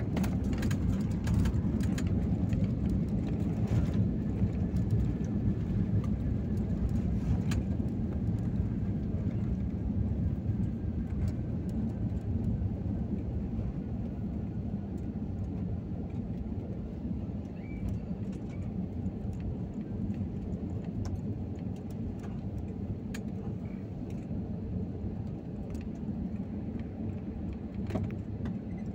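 Airliner cabin noise during the landing rollout just after touchdown: a steady low rumble of wheels and engines, with clicks and rattles in the first few seconds, easing gradually as the plane slows with its spoilers deployed.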